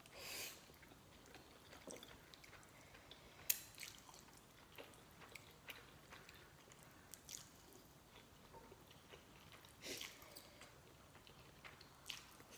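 People slurping and chewing instant noodles, with a few soft slurps (one right at the start, others near ten and twelve seconds in) and small mouth sounds between them. A single sharp click about three and a half seconds in.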